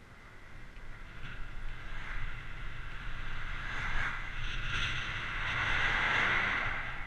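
Road traffic passing close by on a wet dual carriageway: tyre hiss from passing cars that builds and is loudest about five to six seconds in, over a steady low rumble.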